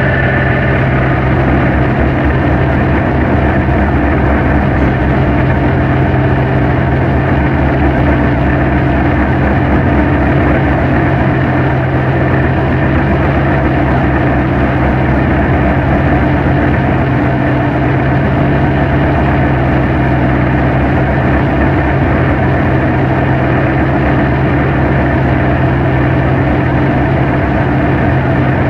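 Dark ambient drone music: a loud, dense, unchanging wall of noise over a steady low hum, with no beat or melody. A high steady tone cuts out right at the start.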